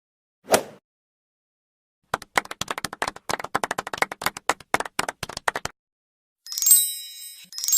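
Stock editing sound effects played one after another. A single short hit comes about half a second in, then a rapid, uneven run of sharp claps lasting about three and a half seconds, then two bright ringing dings near the end.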